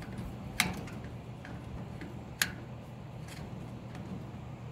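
Hex driver turning the set screw of a metal rotisserie shaft coupler, giving a few light metallic clicks, two of them sharper about two seconds apart, over a low steady hum.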